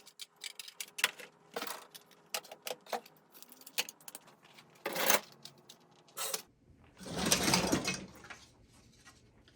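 Hard plastic fire alarm devices and mounting bases being handled and pulled from a box: a run of short clicks and clattering knocks, with a rustling scrape lasting about a second seven seconds in.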